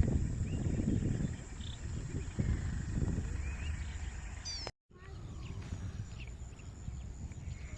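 Wetland ambience: a few short chirping bird calls over a low background rumble, with a brief dropout about two-thirds through where the sound cuts.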